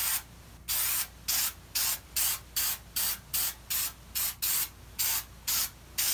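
Aerosol can of Goof Off spraying in short, repeated bursts of hiss, about two to three a second, as the nozzle is pressed again and again to wet old paint for stripping.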